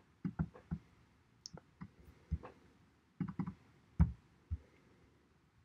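Irregular clicks of a computer mouse and keyboard, about a dozen, the loudest about four seconds in.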